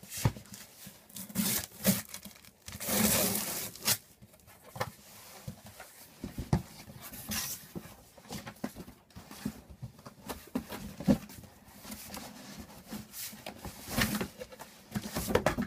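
Parcel packaging being torn open and handled: irregular ripping and rustling with scattered knocks, and one longer tear about three seconds in.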